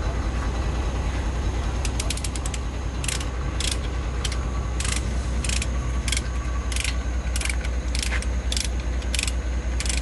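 A ratchet chain binder on a bulldozer's tie-down chain is cranked with a quick run of clicks, then sharp ratchet clicks about twice a second. A steady low engine hum runs underneath.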